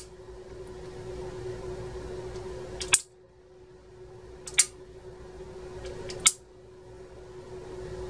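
Room light switches being flipped: three sharp clicks about a second and a half apart, over a steady low hum.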